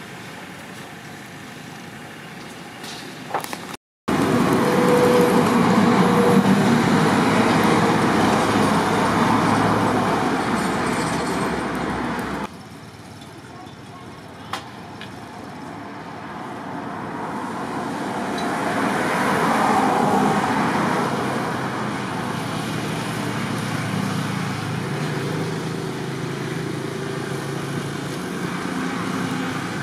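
Motor vehicle and road noise, steady and fairly loud, with a brief dropout about four seconds in, an abrupt drop around twelve seconds, then a slow swell and fade as a vehicle passes.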